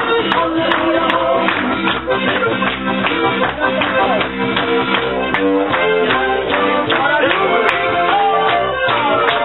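Live volkstümliche (Alpine folk-pop) band music with a steady beat, and the audience clapping along in time.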